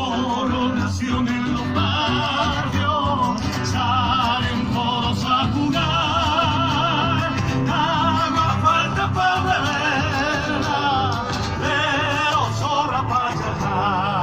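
Music: a Latin American song with a singer using heavy vibrato over a steady accompaniment.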